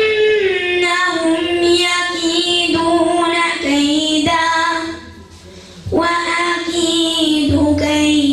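A boy recites the Quran in melodic tajwid style, holding long drawn-out notes with ornamented turns. He breaks for breath about five seconds in and starts again a second later.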